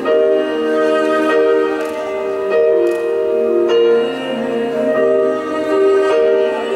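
Instrumental music: a melody of long held notes that change about once a second.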